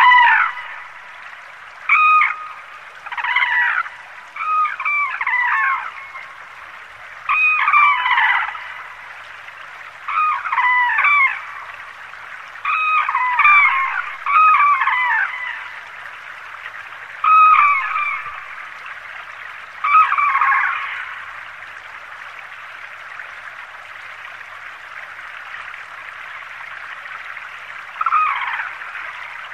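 Cranes calling: loud calls that fall in pitch, in short bouts of two to four that come every second or two, over a steady rush of flowing water. The calling stops about 21 seconds in, with one more bout near the end.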